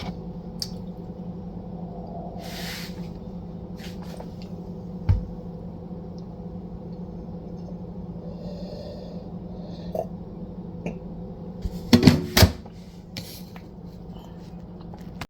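Scattered light clicks and knocks of a cup and spoon being handled over a steady low hum, with a few sharper knocks about twelve seconds in.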